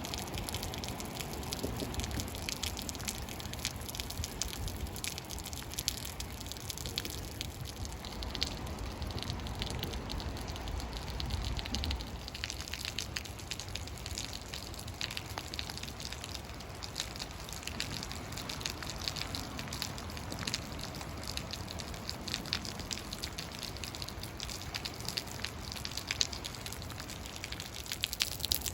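Rainwater falling from a bridge, many drops and splashes over a steady wash of water, with a low rumble underneath.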